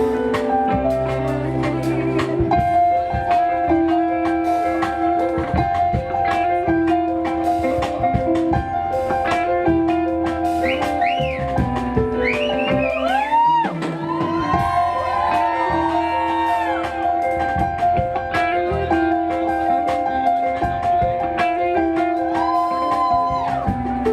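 Pop music with a steady beat and sustained instrument notes; a singing voice joins about ten seconds in and again near the end.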